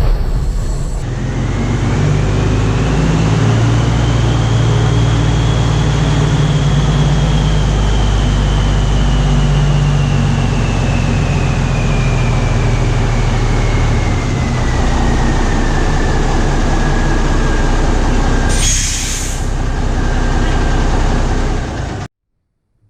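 Ford L9000 semi tractor's Big Cam Cummins diesel engine running as the truck is moved, with a whine that rises and then slowly falls. A short burst of air hiss comes near the end, like the air brakes being set, and the sound then cuts off abruptly.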